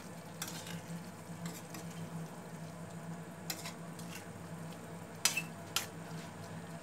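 Chili-tomato squid sambal sizzling gently in a stainless steel frying pan while a spoon stirs it, with a few sharp clicks of the spoon against the pan, the loudest two just past five seconds in. A steady low hum runs underneath.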